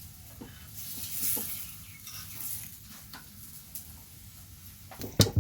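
Chapati frying on a hot pan, a steady sizzle with scattered light clicks, and one sharp knock about five seconds in.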